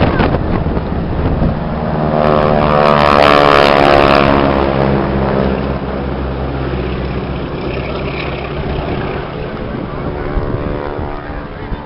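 Propeller-driven biplane flying past, its engine and propeller drone loudest about three to four seconds in, the pitch dropping as it passes, then going on as a steadier, quieter drone. Wind buffets the microphone at the start.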